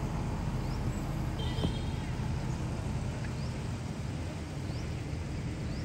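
Outdoor ambience: a steady low rumble with faint, short, high chirps about once a second and one brief higher note about one and a half seconds in.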